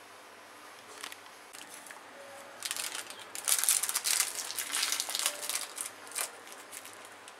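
Foil-lined plastic packet crinkling and crackling as hands open it. The crinkling starts faintly, grows loud about two and a half seconds in, and tapers off near the end.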